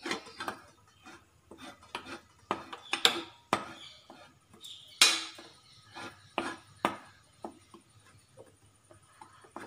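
A metal spoon scraping and clinking against a bowl while stirring a thick, melting chocolate mixture over a double boiler: irregular scrapes and taps, the loudest about halfway through.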